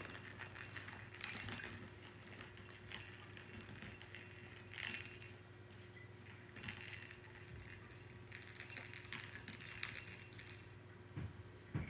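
Light, intermittent jingling and rattling from a Scottish Terrier puppy at play, in several short spells that stop about a second before the end, over a faint steady hum.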